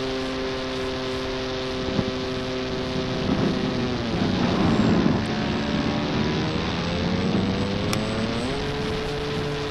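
Brushless outrunner motor and 13x4 propeller of an RC foam aerobatic plane, heard from the onboard camera as a steady whine. About four seconds in, the pitch sinks under a louder rush of wind, then climbs back up near the end.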